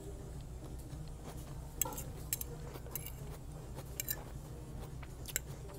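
A fork clicking and scraping against a plate while eating: a few sharp, separate clicks over a steady low hum.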